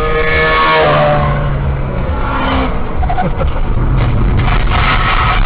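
A motorcycle engine passing at speed, its pitch dropping about a second in, over the car's steady road noise. From about four seconds in, scraping and knocks as the motorcycle goes down and slides along the asphalt.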